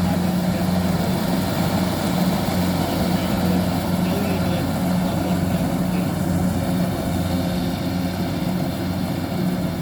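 Kubota rice combine harvester running, a steady low engine hum over an even wash of machine noise.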